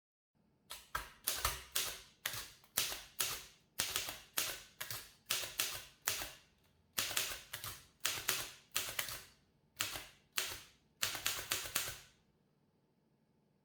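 Typewriter typebars striking as keys are typed one at a time, an uneven run of about two strikes a second that stops shortly before the end.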